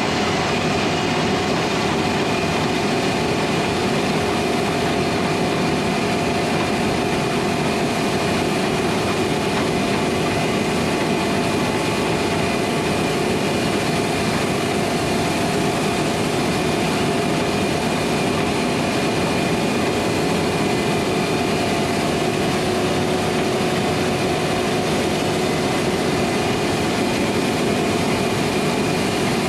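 Heavy harvest machinery running steadily under load: a constant engine drone with several steady whining tones on top, unchanging throughout.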